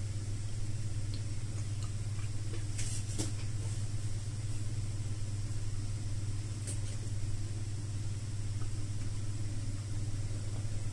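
A steady low hum, with faint chewing of soft, ripe papaya slices on top: a few small mouth clicks about three seconds in and again near seven seconds.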